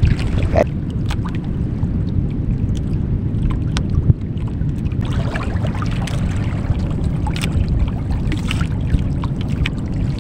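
Steady low rumble aboard a small outrigger fishing boat, with scattered light knocks and clicks.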